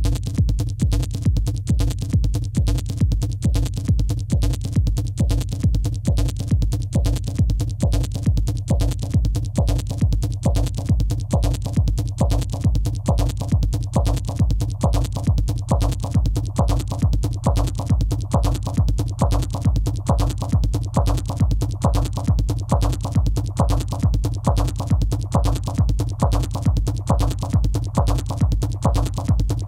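Electronic techno music from a drum machine: a steady, evenly repeating kick at about two beats a second over a sustained bass line, with fast ticking hi-hats, and a mid-pitched synth pattern that grows louder from about ten seconds in.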